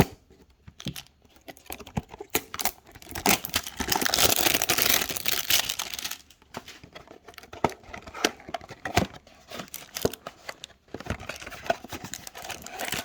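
Trading-card packaging being torn open and crinkled, with scattered clicks and rustles throughout and a dense stretch of crinkling from about four to six seconds in.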